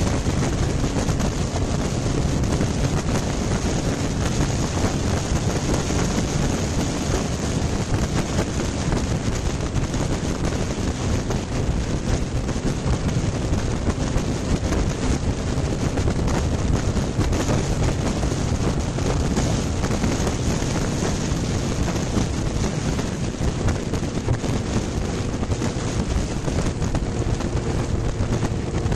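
Wind rushing over a motorcycle-mounted camera's microphone at road speed, mixed with the steady running of the Honda CB900F's inline-four engine.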